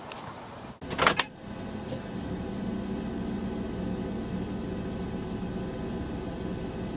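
Chevrolet Caprice police car idling in reverse, a steady hum heard from inside the cabin. A brief loud clatter comes about a second in.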